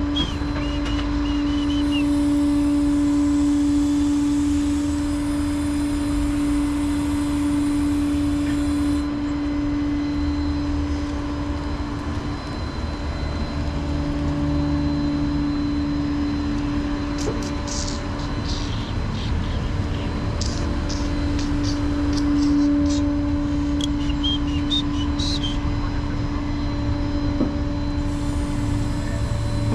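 A rollback tow truck idling with a steady hum and low rumble. Several short, high chirps come and go in the second half.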